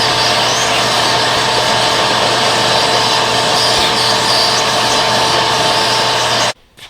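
Shop vacuum running at full power with a steady whine over a rushing air noise, then switched off abruptly near the end. It is running normally again with its refitted, reused filter bag.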